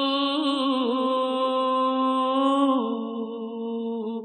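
A man singing unaccompanied, in the style of a Punjabi Sufi kalam, draws out the closing "hu" of a line as one long held note. He wavers it in a few ornaments about half a second in, steps down to a lower note near three seconds, and breaks off at the end.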